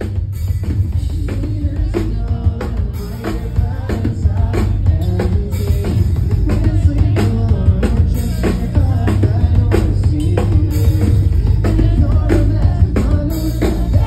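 Live band playing, a drum kit keeping a steady beat over heavy bass.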